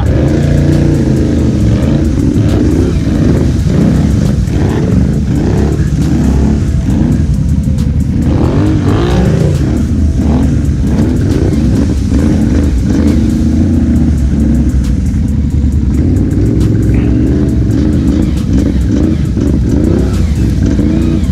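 ATV engine being ridden hard, its revs rising and falling again and again with the throttle.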